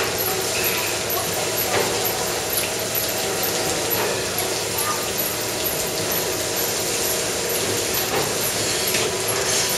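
Milking-parlour machinery running: a steady mechanical hum and hiss from the milking equipment, with scattered faint metallic knocks.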